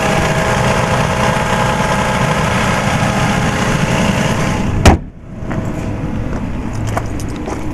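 Toyota Camry V6 engine idling steadily, then one loud bang about five seconds in, like the hood being shut, after which the idle sounds muffled and much quieter.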